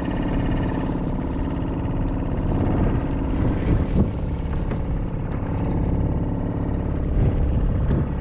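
Small 2 hp outboard motor running steadily at low speed, a constant low drone with a steady pitch.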